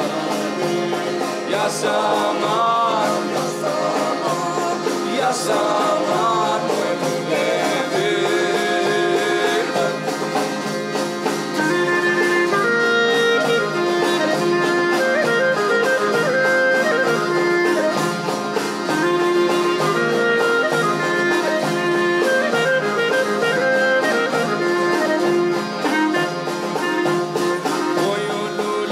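Albanian folk music: an instrumental passage of a small folk band, a melody line ornamented over steady held drone notes.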